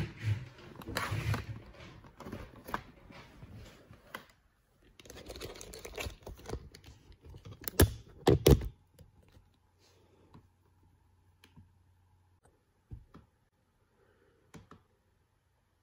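A busy run of clicks, taps and rustling for about nine seconds, then a few scattered clicks.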